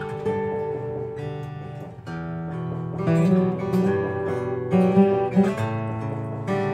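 Two acoustic guitars, one built from Thai tonewood and one from imported wood, fingerpicked together as a duet: a picked melody over plucked chords. The playing thins briefly about two seconds in, then grows fuller with strong accented notes.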